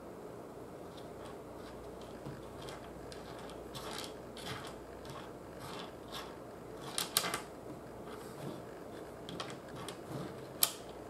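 Tiny salvaged magnets ticking and scraping on a hard surface as fingertips nudge them, with a cluster of sharper clicks about seven seconds in and one sharp click near the end as they snap together. Steady low room noise underneath.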